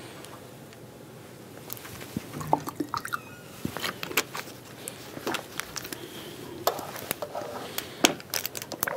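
Plastic water bottle being handled: scattered crinkles and clicks of the bottle and its cap, starting about two seconds in.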